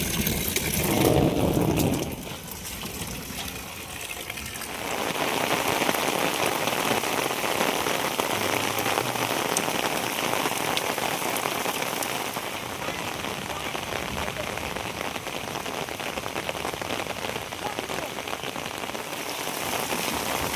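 Heavy rain falling, a steady hiss of drops striking surfaces; it drops back briefly about two seconds in and comes up fuller and steady from about four and a half seconds in.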